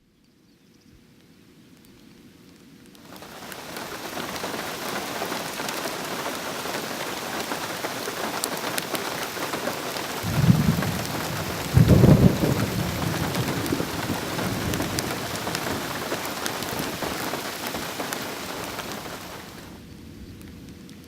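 Bonfire burning: a dense crackling hiss full of small pops fades up and holds, with two heavy low rumbling surges near the middle, then eases down near the end.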